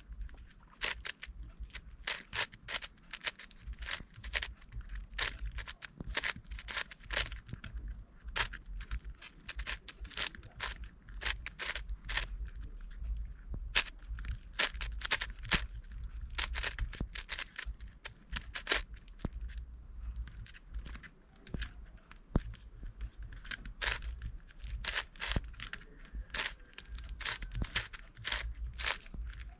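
Plastic clicking and clacking of an 8x8 Rubik's cube's layers being turned by hand: quick, irregular clicks several a second with short pauses between runs of turns.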